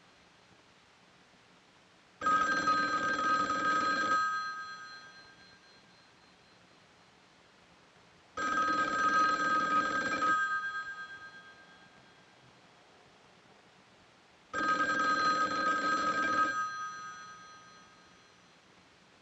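Telephone bell ringing three times, each ring about two seconds long with a short fading tail, in the regular two-seconds-on, four-seconds-off ring cadence.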